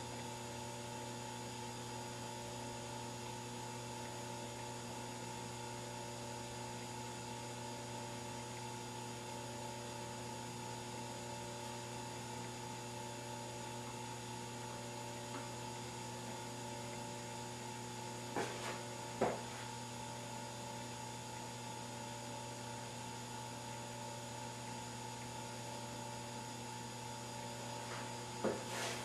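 Steady electrical hum, with a few faint clicks about two-thirds of the way through and again near the end.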